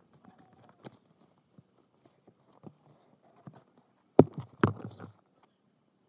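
Handling noise as a glittery fabric pouch and its cardboard tag are turned over in the hands: scattered light rustles and taps, with two much louder knocks about half a second apart a little past the middle.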